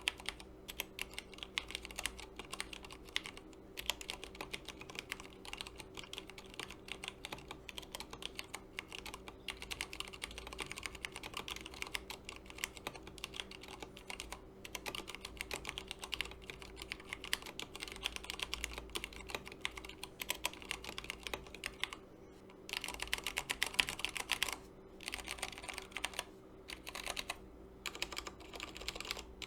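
Continuous fast typing on an Akko 3084 75% mechanical keyboard with tactile Cherry MX Brown switches: a dense run of keystroke clacks with a couple of brief pauses in the second half.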